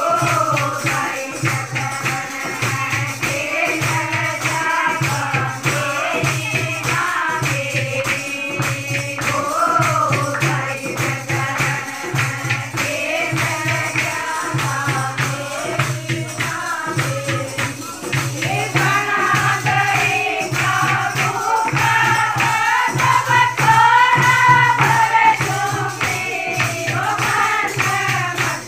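A group of women singing together with rhythmic hand clapping over a steady, regular low beat.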